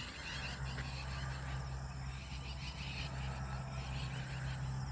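Outdoor evening chorus of insects and frogs: quick, repeated chirps and trills, over a steady low hum.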